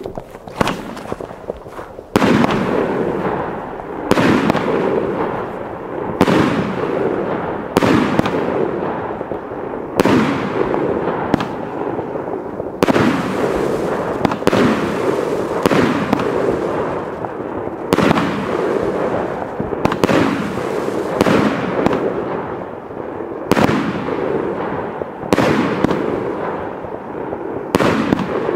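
'Let's Fetz' compound firework battery (146 shots, nearly 2 kg of net explosive) firing through: lighter crackle for about two seconds, then a continuous barrage of launches and bursting shells with a loud sharp bang every one to two seconds over steady crackle and rumble.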